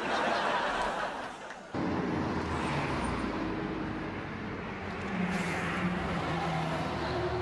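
A burst of audience laughter that cuts off after about a second and a half, then city street traffic: cars and taxis running and passing.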